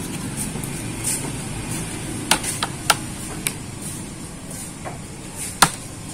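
Sharp plastic clicks and snaps at irregular intervals, the loudest near the end, as a laptop's plastic casing around the webcam is taken apart, over a steady low background hum.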